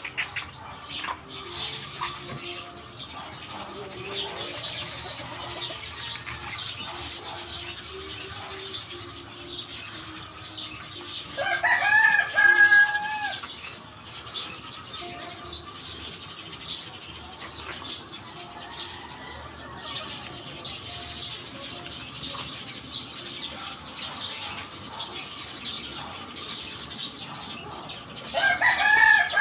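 Dry rustling and snapping of banana-heart bracts being peeled off by hand, a steady patter of small crisp clicks. A rooster crows loudly once, about twelve seconds in, and begins another crow just at the end.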